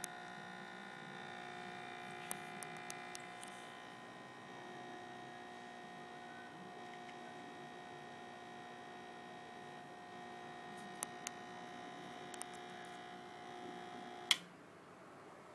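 Francis Francis X1 espresso machine's pump humming steadily while brewing a shot, then switched off with a sharp click about fourteen seconds in. A few light ticks come along the way.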